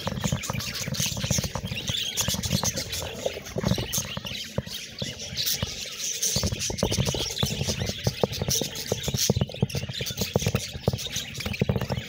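A flock of budgerigars chattering and chirping all at once: a dense, unbroken mix of quick clicks, chirps and warbling, with a low rumble underneath.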